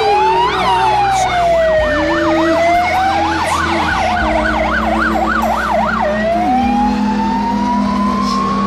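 Fire engine siren: a slow wail, then a fast yelp of about three cycles a second from about two seconds in, switching back near six seconds in to a slow wail that rises steadily, over a low vehicle rumble.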